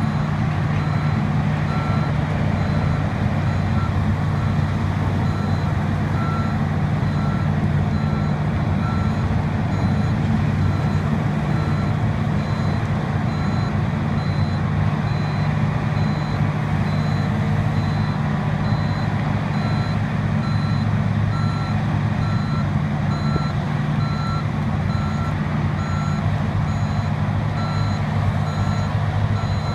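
Liebherr 964 crawler excavator's diesel engine running steadily under load as the machine tracks up onto a lowbed trailer, with a travel alarm beeping over it in an even, repeating pattern.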